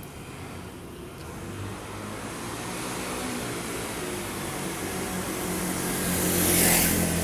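Small motor scooter riding up the street toward the listener, its engine growing steadily louder, then passing close by near the end.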